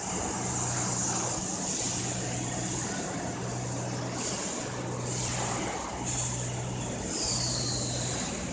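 Machine-shop floor noise from running CNC machining centres: a steady mechanical din with a high hiss and a low hum that cuts in and out about every second and a quarter. A short falling whine comes near the end.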